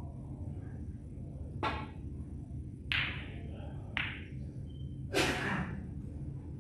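A snooker shot: cue and balls clicking sharply four times over about four seconds, from the cue striking the cue ball to balls colliding, with the last click the loudest.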